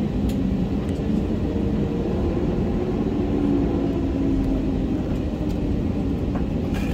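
Airbus A320neo taxiing, heard from inside the cabin: a steady low rumble from the engines and the rolling wheels, with a faint hum that drifts slightly in pitch and a couple of light clicks.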